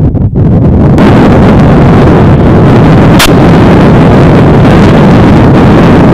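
Heavy wind buffeting the camera microphone: a loud, steady rumbling hiss that overloads the recording, with a single sharp click about three seconds in.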